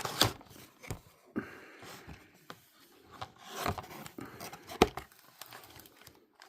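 Cardboard trading-card booster box and foil packs being handled: rubbing and scraping with several sharp taps, the loudest a little before the end.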